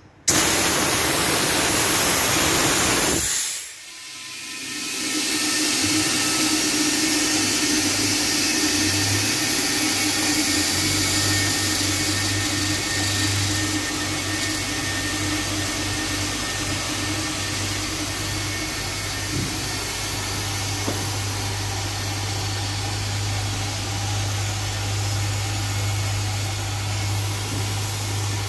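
Vacuum forming machine running: a loud rush of air for about three seconds that cuts off, then the vacuum pump comes back up over a couple of seconds to a steady hiss with a low hum as it draws the softened 2 mm acrylic sheet down over the letter mould.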